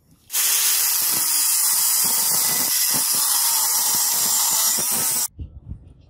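Angle grinder with a cutting disc cutting through a flattened steel bar: a loud, steady hiss of the disc in the metal that starts abruptly and cuts off suddenly about five seconds in.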